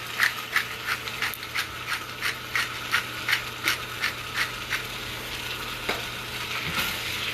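Pepper mill being twisted over a stir-fry, clicking about three times a second for some four seconds, then stopping and leaving the steady sizzle of the rice and vegetables frying in the pan.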